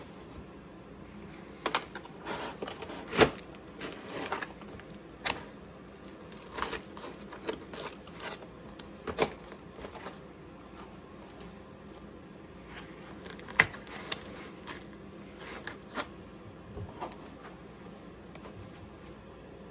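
Handling noise of an inspection camera with its cable coiled tight being pressed into the cut-out foam of its carrying case: irregular clicks, knocks and scrapes, with the sharpest knocks about three seconds in and again near fourteen seconds.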